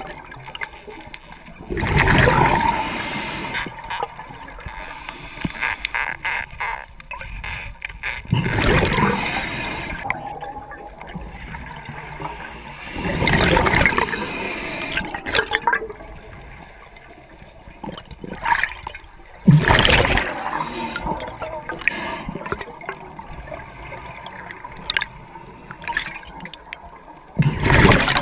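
Scuba diver's breathing through a regulator: exhaled bubbles rush out in loud gurgling bursts, about five in all, every five to eight seconds, with quieter water noise between.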